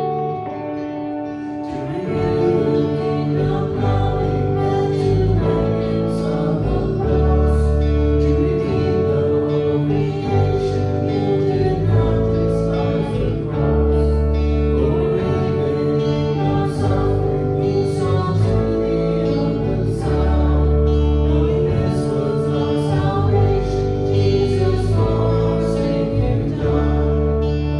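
Christian worship song: band music with guitar, steady bass notes and an even beat, with singing.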